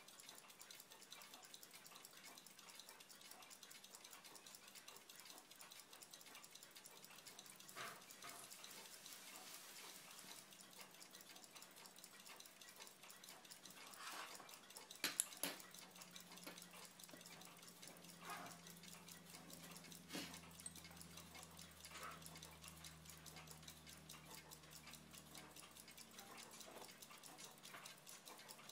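Near silence at a watchmaker's bench, broken by a few sparse, faint clicks of fine steel tweezers handling a tiny hairspring and collet on paper. The loudest is a quick pair of sharp clicks about halfway through, and a faint low hum sets in after it.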